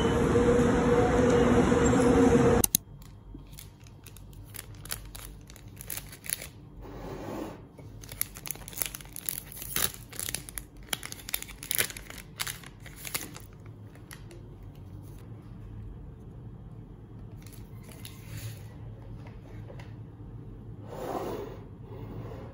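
Crinkling, tearing and small clicks as a Muji drip-coffee bag's packet is opened and the paper filter is unfolded and hung on a mug. The sounds come thickest in the middle, with a soft rustle near the end. Before this, loud rail-station noise with a steady hum cuts off suddenly a couple of seconds in.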